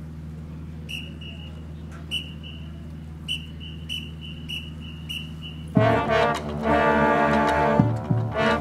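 A steady low hum with a string of short, high pips about three a second. About two-thirds of the way in, a marching band's brass section comes in loud and full, with drums hitting under it.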